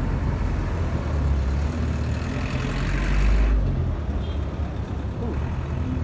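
Road traffic passing close by: vehicle engines rumbling and tyres hissing. A light truck drives past, loudest a little past halfway, then the hiss drops away suddenly.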